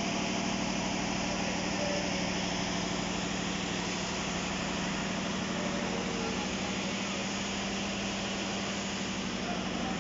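Diesel engine of a stationary train idling with a steady drone, with a murmur of voices mixed in.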